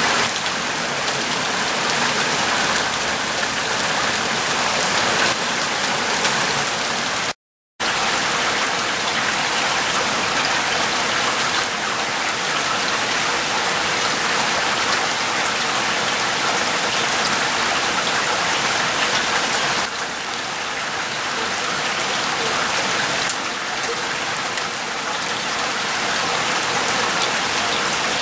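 Steady, heavy rain falling and pattering on grass and ground, with a brief total dropout about seven seconds in.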